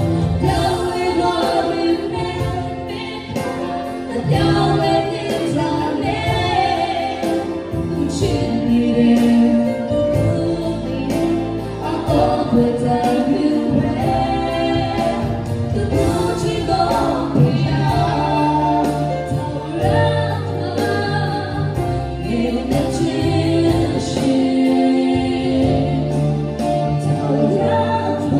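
A man and a woman singing a gospel duet into microphones over instrumental accompaniment with steady low bass notes.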